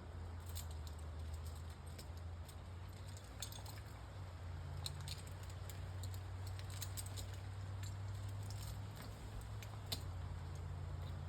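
Faint metallic clinks and light rattling, scattered and irregular, from an arborist's climbing hardware, over a steady low hum.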